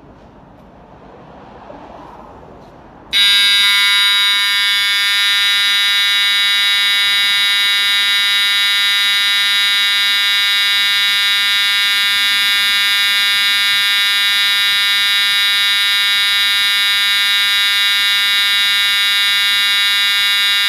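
Air-handling unit's dirty-filter alarm, set off by cardboard blocking the filters to simulate clogged filters. A low fan hum gives way about three seconds in to a loud, continuous buzzer tone that starts suddenly and holds steady.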